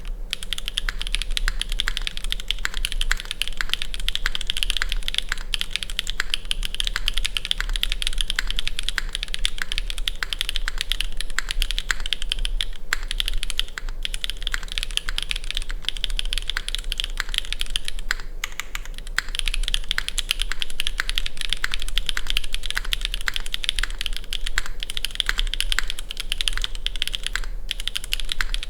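Fast continuous typing on a CW60 gasket-mount mechanical keyboard with stock, unlubed Gateron Raw switches on a polycarbonate plate, with GMK keycaps and no foam: a dense stream of key clacks with only brief pauses.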